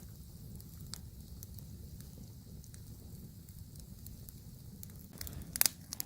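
Wood campfire crackling with scattered sharp pops over a steady low rumble, the pops coming louder and thicker about five seconds in.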